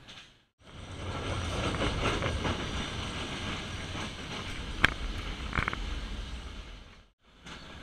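Nilgiri Mountain Railway metre-gauge train running, heard from an open coach window: a steady rumble with scattered wheel clicks, the sharpest about five seconds in. The sound drops out briefly just after the start and again near the end.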